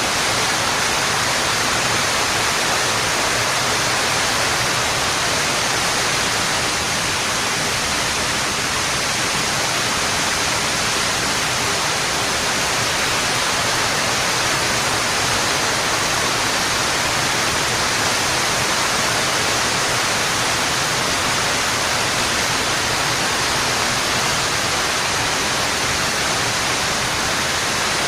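Waterfall: water falling in a steady, even rush with no breaks.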